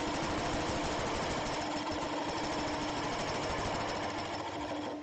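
Woodcut bowl-coring blade cutting into a walnut blank spinning on a wood lathe: a steady hiss of cutting mixed with the lathe's steady hum, stopping suddenly at the very end.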